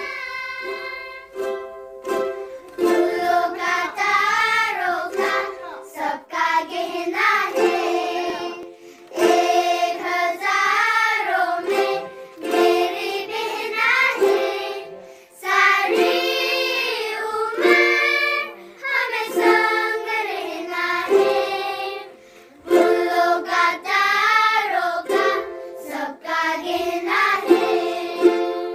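A group of children singing a song together while strumming ukuleles, in sung phrases of a few seconds with short breaks between them.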